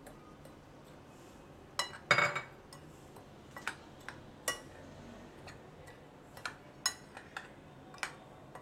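Metal spoon clinking against a glass mixing bowl while stirring dry flour and powdered sugar: a handful of separate clinks, the loudest about two seconds in.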